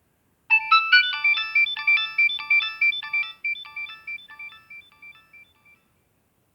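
Nokia 2610 mobile phone playing one of its built-in ringtones: a quick synthesized melody of bright notes, several sounding at once, that starts about half a second in, grows steadily quieter and stops shortly before the end.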